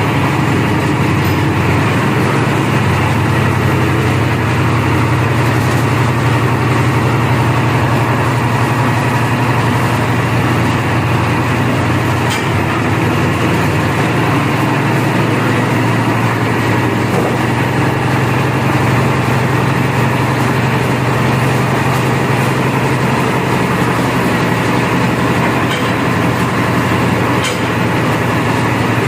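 Concrete mixer with hopper running steadily, a continuous engine-like drone with a strong low hum.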